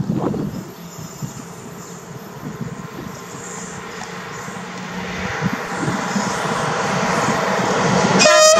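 GFR class 40 (060-EA) electric locomotive hauling a freight train of tank wagons as it approaches, its running noise and a steady low electrical hum growing louder. A short horn note sounds just before the end.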